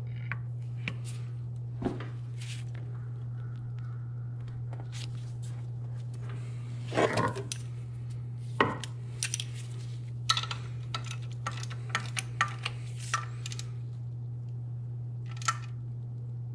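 Metal hand tools clinking and knocking against engine-bay fittings, with a ratchet and wrench at work: scattered sharp clanks and a run of smaller clicks, over a steady low hum.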